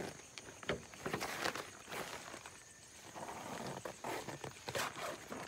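Zipper of a nylon camping tent pulled open in several short, uneven runs, with the tent fabric rustling and a sharp click less than a second in.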